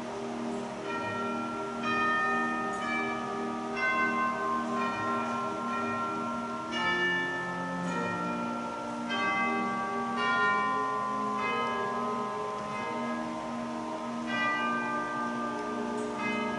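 Church chimes playing a tune: overlapping struck bell notes, each ringing on after it sounds, in a steady melodic sequence.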